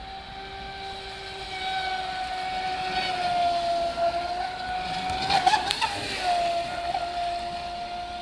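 Electric RC boat's brushless outrunner motor running with a steady high-pitched whine. The pitch sags briefly about four seconds in, then a short crackly burst comes with the pitch wobbling about five and a half seconds in.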